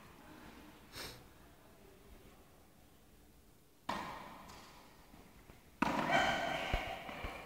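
Tennis ball struck by a racket in an indoor tennis hall, sharp hits about a second in and about four seconds in, the second ringing on in the hall's echo. About six seconds in comes the loudest sound, a sustained pitched sound lasting about a second, with a couple of dull thumps after it.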